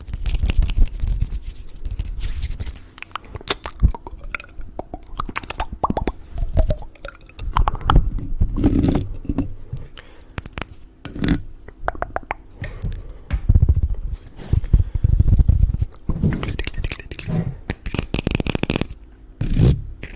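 Close-miked scraping and crunching with many sharp clicks and repeated low thumps.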